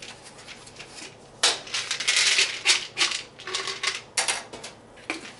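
Plastic vitamin bottle being handled and opened: its screw cap is twisted off and set down on the counter, with a dense rattle about a second and a half in and then a few sharp clicks.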